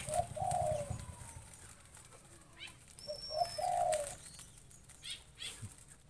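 Zebra dove cooing: two short low phrases, one at the start and one about three seconds in, with faint rustles and wing flutters in between.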